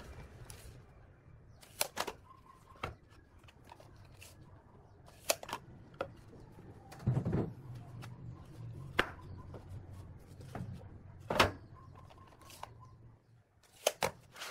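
Plywood boards being handled and set down on a workbench: a series of sharp wooden knocks, about ten in all at uneven intervals, the loudest about eleven seconds in and a quick pair near the end. A faint low hum runs underneath.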